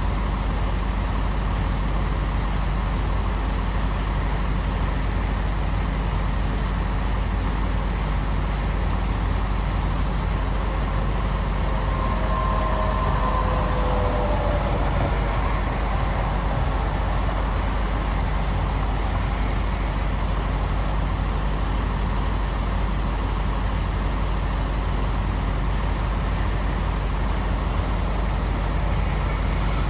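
Steady low drone of idling diesel semi-trucks and road traffic, unchanging throughout, with a faint brief whine around the middle.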